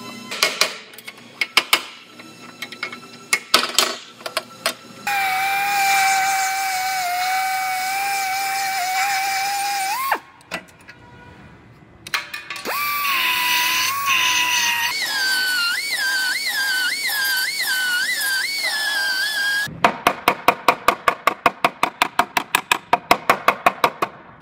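Hand tools and an air drill working on car body metal while the damaged front structure is cut out. Scattered metal knocks and taps first, then the drill whining steadily. After a short break it whines again, its pitch swinging up and down about once a second as it bites. It ends in fast, even knocking, about four or five strikes a second.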